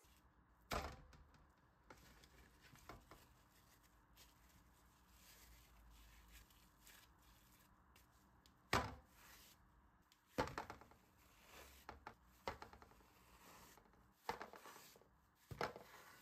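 Hand handling noise of a plastic-wrap-lined patty mould and raw patties on a steel tray: faint crinkling of plastic film with about six sharp taps and knocks spread through.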